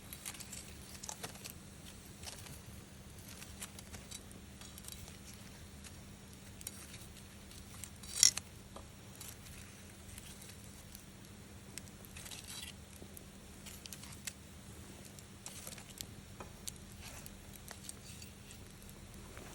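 Wood fire crackling with scattered small snaps, and one loud sharp pop about eight seconds in.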